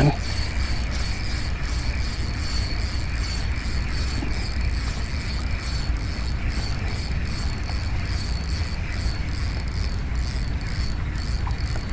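Spinning reel being wound in, its gears whirring and clicking steadily, over a steady low rumble.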